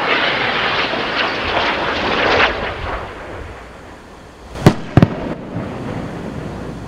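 Test rocket in free flight: a loud rushing noise that fades after two or three seconds, then two sharp bangs about a third of a second apart, followed by a lower rumble.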